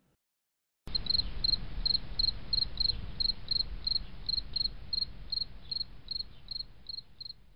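Cricket chirping: a steady rhythm of high chirps, about three a second, over a low hiss. It starts about a second in and fades out near the end.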